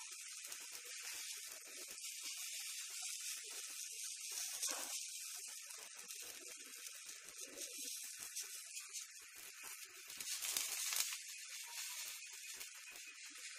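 Black-lentil batter patty (wo) sizzling as it fries on a hot flat pan, a steady hiss that swells briefly about four and a half seconds in and again around ten seconds in.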